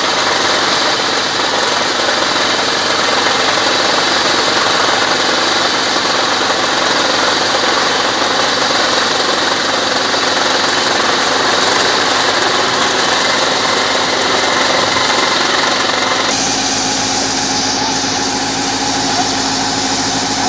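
A water-well drilling rig's engine running steadily under load while water gushes and splashes out of the freshly drilled well's casing. About three quarters of the way through, the rushing hiss drops and a steadier engine hum stands out.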